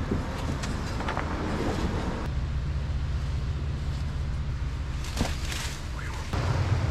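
Wind buffeting the microphone as a steady low rumble, with a few faint knocks as the plastic kayak is lowered over a beach wall and stood against it.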